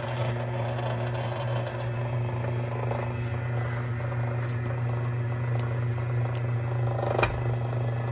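VEVOR 038-MDA electric wire stripping machine running steadily, its motor humming as it automatically feeds 12-gauge Romex through its blade. One sharp knock comes about seven seconds in.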